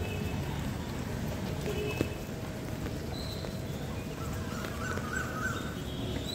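Outdoor street ambience on a wet road: a steady low rumble of distant traffic and wind, with a single sharp tap about two seconds in and a few faint short high chirps later.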